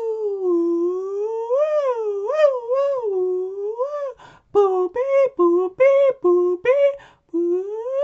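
A man imitating a UK ambulance siren with his voice. First comes a wailing tone that slides slowly up and down, then quicker wobbles. After a short break about four seconds in, it switches to a two-tone 'nee-naw' of alternating high and low notes, and near the end it rises into another wail.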